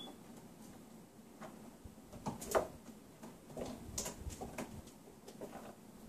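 Faint, irregular light taps, soft knocks and rustles of a cat moving about on the upper platform of a carpeted cat tree, the loudest knock about two and a half seconds in.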